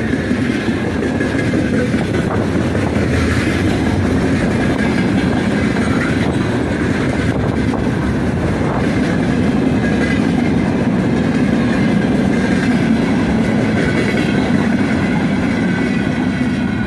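Freight train wagons rolling past at close range: a steady, loud rumble and clatter of steel wheels on the rails.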